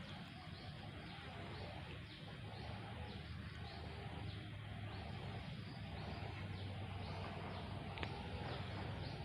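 Bird calls: a long run of short, falling high chirps, repeating every half second or so, over a steady low rumble.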